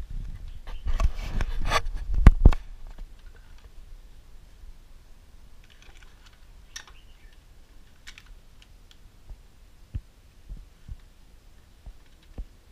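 Rubbing and scraping close to the microphone for about two seconds, ending in two sharp knocks, then a few faint clicks and soft thumps.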